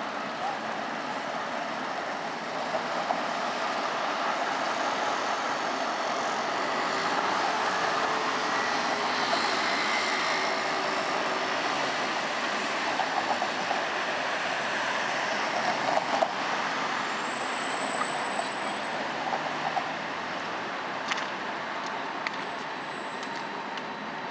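City street traffic at a tram stop: a steady rumble of passing road vehicles and trams, with a few light clicks and a brief high squeal about two-thirds of the way through.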